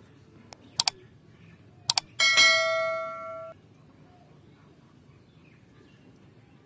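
Subscribe-reminder sound effect: two quick double mouse clicks, then a loud bell ding that rings for about a second and cuts off abruptly.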